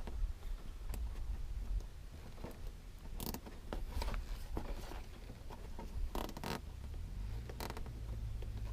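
Small nylon zip ties being pulled tight through their locking heads: several short ratcheting zips a few seconds apart, with light handling of the plastic in between.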